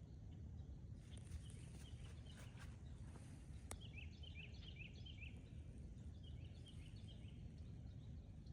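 Faint outdoor ambience with a low steady rumble, one small click, and a small bird's short high chirps in two quick runs, about four seconds in and again near the end.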